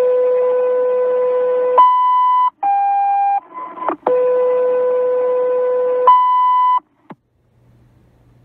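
Fire dispatch radio alert tones: a long low tone followed by a short higher one, another brief tone, then the long low, short high pair again, cutting off abruptly.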